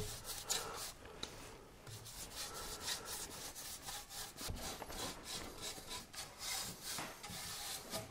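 A brush being worked over spruce boards, spreading oil in quick back-and-forth strokes: a faint run of dry rubbing swishes.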